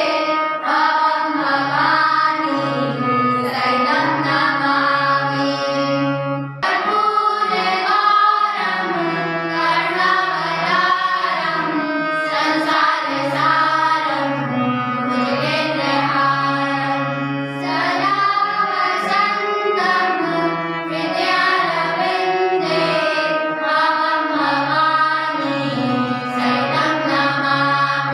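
Music: singing over instrumental accompaniment, with a short break about six and a half seconds in.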